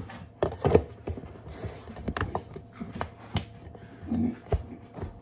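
A glass food-storage bowl being handled: a string of short clinks and knocks as it is moved on the counter. Near the end, its plastic lid is pressed down onto it.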